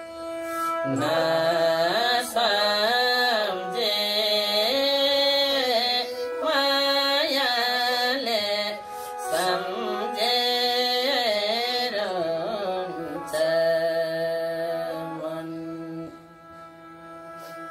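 Nepali sarangi, a small bowed folk fiddle, playing a traditional Gandharva tune while a voice sings over it in bending melodic phrases. The singing stops about fifteen seconds in, leaving the sarangi's held note.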